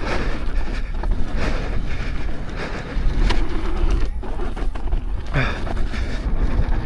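Wind buffeting the microphone and a tire rolling over a dirt trail as an electric unicycle is ridden fast, with several sharp knocks from jolts over bumps.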